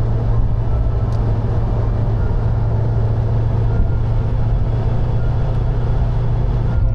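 Car driving at a steady speed, heard as a steady low engine drone under even road and tyre noise.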